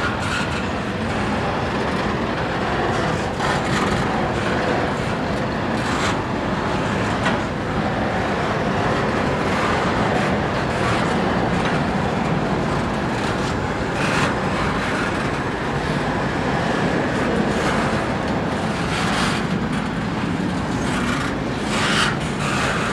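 Double-stack container train's loaded well cars rolling past: a steady rumble of steel wheels on rail, with a few brief knocks scattered through it.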